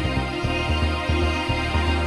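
Background music: sustained synth chords over a pulsing bass line.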